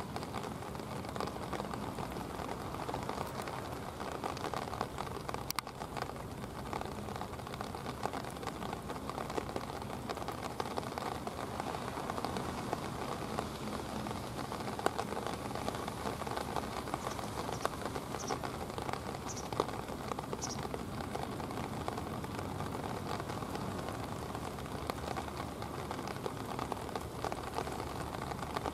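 Steady patter of rain, even and unbroken, with a faint low steady hum beneath it. A few faint high chirps come about two-thirds of the way through.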